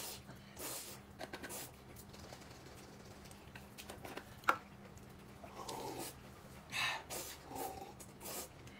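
A person eating: scattered chewing, smacking and slurping mouth noises with a few short hums, and one sharp click about halfway through.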